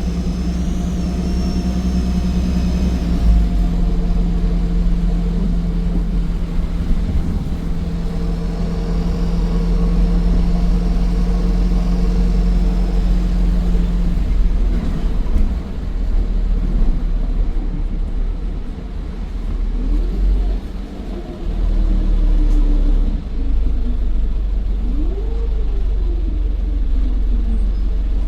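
Optare Versa bus's Daimler OM934 5.1-litre diesel running under way, with a high turbo whine over the engine hum. In the second half the engine note rises and falls several times.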